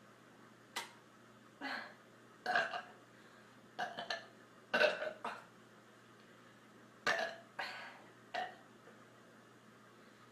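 A woman burping over and over after drinking soda: a string of about eight short burps, several coming in quick pairs, with brief pauses between.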